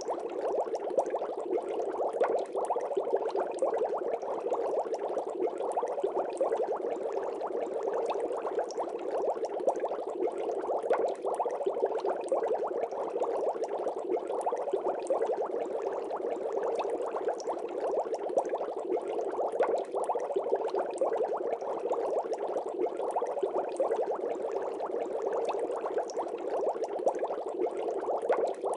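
Aquarium water bubbling steadily, a dense stream of small irregular pops and gurgles.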